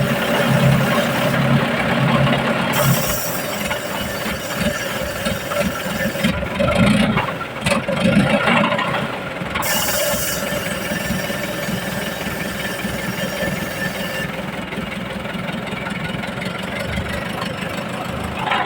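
Mansan 939L wheel loader's diesel engine running loudly and steadily, its rumble growing rougher for a few seconds around the middle.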